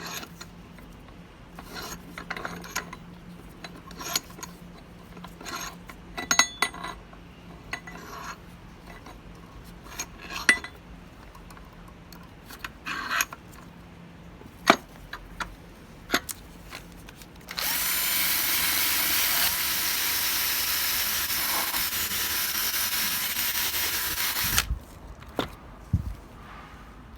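Scattered small clicks and knocks of hand work on a metal tool. Then a power tool runs steadily for about seven seconds and stops suddenly.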